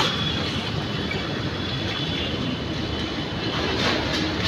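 An engine idling, a steady rumble with a fast, even pulse.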